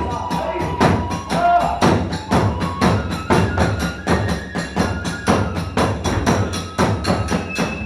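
Kagura hayashi ensemble playing a fast, driving rhythm: about four sharp drum and hand-cymbal strikes a second under held flute notes that step up and down in pitch.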